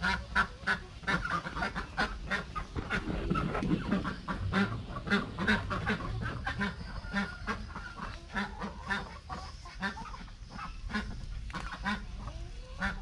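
A small flock of white domestic ducks quacking, many short calls in quick, overlapping succession.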